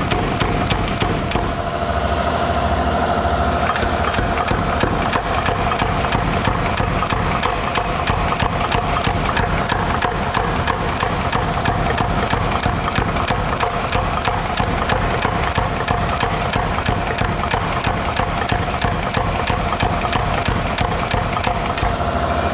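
Power hammer working a red-hot steel bar: a fast, even run of blows with the machine's steady hum underneath as the bar is drawn down to a taper.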